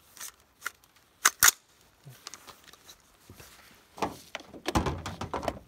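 Sharp metallic clicks of an AR-15 pistol being handled, with two close together about a second and a half in. Near the end comes a stretch of rustling and bumping handling noise.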